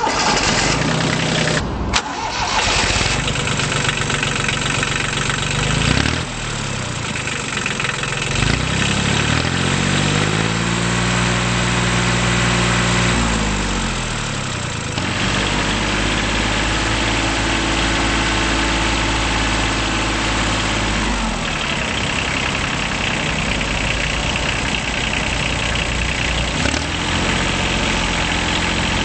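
Kubota B8200D compact tractor's three-cylinder diesel engine starting at the beginning and running, revved up about ten seconds in, held, then brought back down, with further throttle changes later on.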